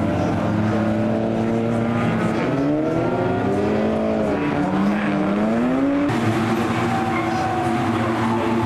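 Several race car engines revving through a corner, their pitch dipping and rising as the cars brake and accelerate away. The sound changes abruptly about six seconds in.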